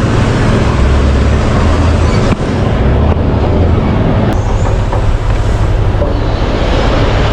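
Heavy mining machinery at work: the steady low drone of large diesel engines, with a brief dip about two and a half seconds in.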